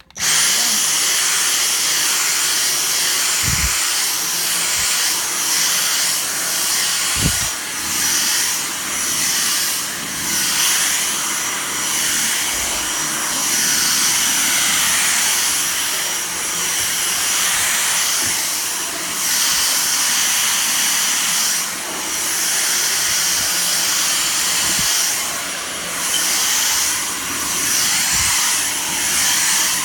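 Dyson vacuum cleaner switching on and running, a loud hiss of suction with a steady high whine, its level rising and falling as it is worked over the dirt.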